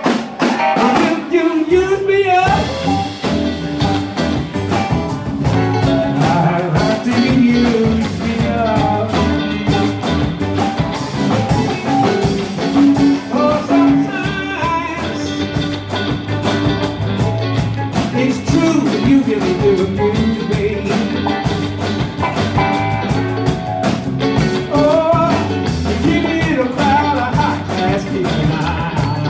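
Live blues band playing: guitars, bass and drums, with a man singing at the microphone.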